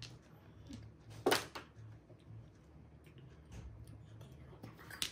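Mahjong tiles clacking on the table during play: one sharp clack about a second in, then a few lighter clicks near the end, over a low steady hum.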